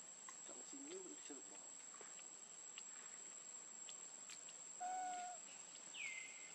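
Insects droning steadily at a high pitch. A short held call with a clear pitch comes about five seconds in, and two quick calls falling in pitch follow near the end.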